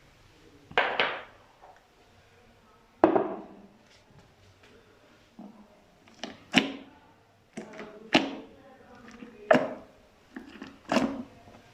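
Slime being pressed and squished by hand: a series of sharp, short squelches, about one every one to two seconds.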